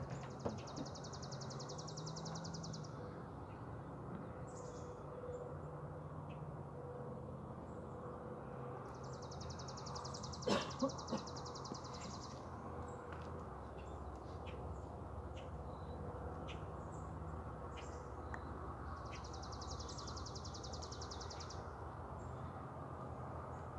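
Outdoor ambience in which a small songbird sings a high, dry, rapid trill about three seconds long, three times, with a faint steady low hum beneath. A brief cluster of louder short sounds comes about ten and a half seconds in.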